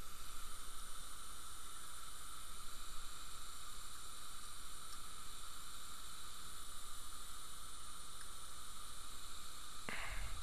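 Steady background hiss with a faint, even hum, and a brief soft rush about ten seconds in.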